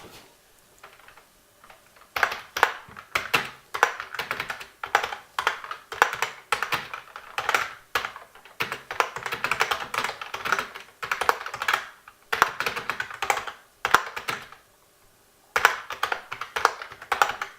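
Fast typing on a Lexmark-made IBM Model M style keyboard with rubber-dome keys, a dense run of plastic key clacks that starts about two seconds in and pauses briefly near the end. The keys are tactile rather than clicky: not quite mechanical clickiness.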